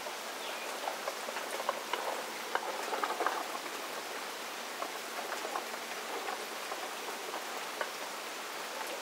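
Steady rain falling on wet pavement, with scattered short drip-like ticks.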